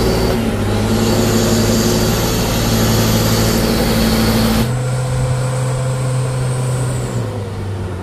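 Heavy truck engine running loud and steady under strain. About four and a half seconds in, the noisy part cuts off abruptly, leaving a lower steady drone that fades away near seven seconds.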